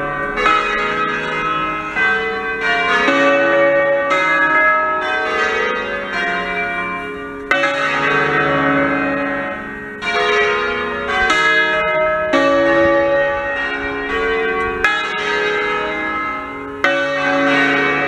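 Peal of six bronze church bells cast by Fratelli Ottolina in 1928, tenor in D-flat, ringing in full swing (distesa): the bells turn through full circles and strike one after another, the clangs overlapping and each ringing on.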